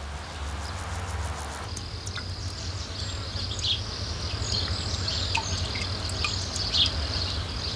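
Outdoor summer ambience: a steady high insect buzz that comes in about two seconds in, with small birds chirping over it, above a low steady rumble.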